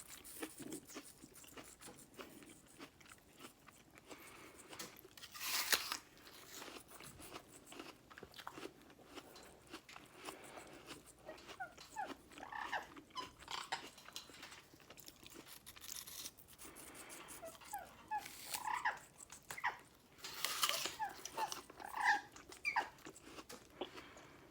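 Quaker parrot crunching and cracking food in its beak, a steady run of small crackles and clicks. In the second half come short, quiet chirps from the bird.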